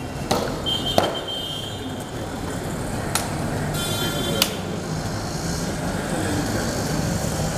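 Parade drill of a cadet guard of honour: a few sharp knocks of boots stamping and rifles being handled on a hard tiled floor, spread over several seconds, with two short high-pitched tones. Steady background noise runs underneath.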